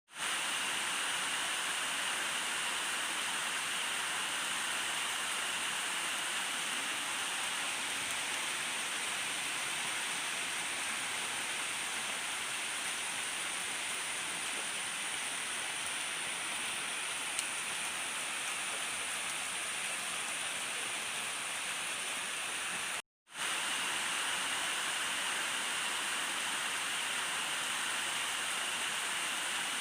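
Steady rain falling without thunder, an even hiss with most of its weight in the upper range. It cuts out completely for a split second about two-thirds of the way through, then resumes unchanged.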